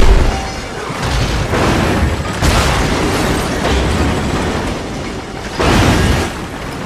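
Film sound effects of an underground train crashing through a tunnel: a heavy, continuous low rumble broken by loud crashing impacts. The loudest comes right at the start, with more about one and a half and two and a half seconds in and a big one about six seconds in.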